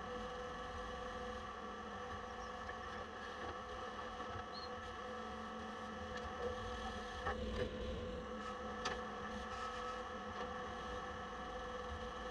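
Old diesel engine of a 1970s Poclain LC80 excavator running steadily, heard faintly as an even droning hum, with a few short knocks around the middle.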